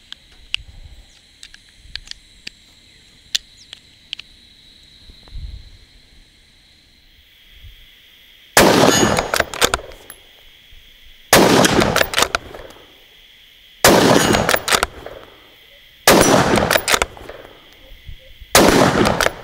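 Five rifle shots from a Sauer S100 bolt-action rifle in .223 Remington, spaced about two to two and a half seconds apart, each with a short echo. Before them come faint clicks of cartridges being pressed into the rifle's detachable magazine.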